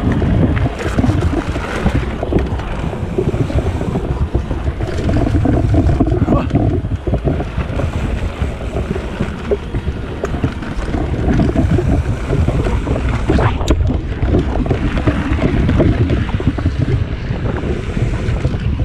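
Mountain bike riding down gravel and then dirt singletrack: wind buffets the microphone over the rumble and rattle of the tyres and bike on the trail, with occasional sharp knocks.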